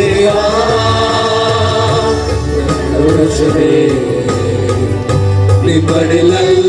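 Christian worship music: a choir of singers holding long sung notes between lyric lines, over band accompaniment with bass and a drum beat.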